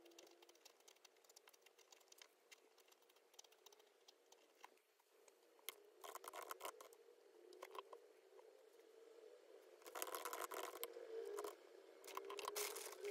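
Soft key-clicking of typing on a laptop keyboard, with quicker, louder runs of keystrokes about six seconds in and again near the end. A faint steady hum sits beneath.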